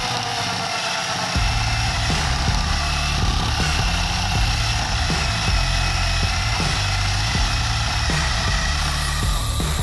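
Cordless drill running steadily, spinning a 3M rubber decal-eraser wheel against a boat hull to rub off the vinyl decals.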